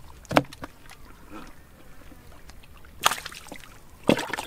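Muddy water splashing and sloshing as hands grope in a shallow pool, with three sharp splashes: one just after the start, one about three seconds in, one near the end.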